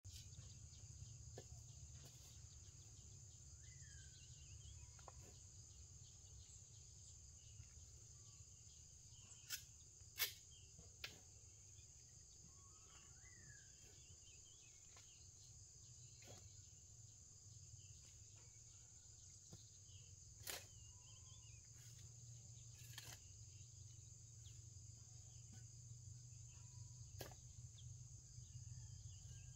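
Faint outdoor ambience: a steady high-pitched insect drone over a low rumble, with a few short bird chirps and several sharp clicks, the loudest about ten seconds in.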